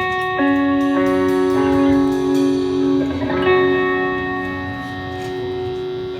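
Guitar playing a slow song intro: chords struck and left to ring, changing quickly over the first couple of seconds, then a new chord about three seconds in that rings and slowly fades.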